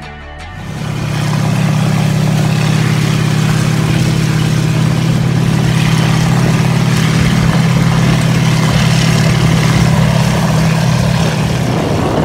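Military halftrack engine running, a loud steady low drone that comes in under a second in as background music ends, easing slightly near the end.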